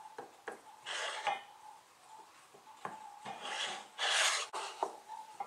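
Plywood block slid by hand across a table saw's laminate tabletop: a few rasping rubs with light knocks. The loudest swish comes about four seconds in.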